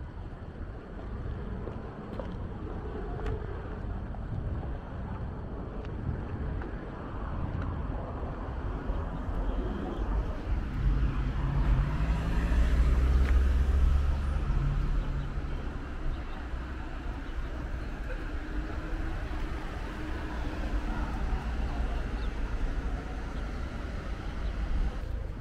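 Street traffic noise, with cars running by. A car engine's low hum grows loud for a few seconds about halfway through, then fades back into the general traffic.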